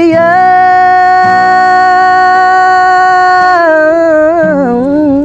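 A man singing with an acoustic guitar. He holds one long note for about three seconds, then winds down through a wavering run of shorter notes over a few light strums.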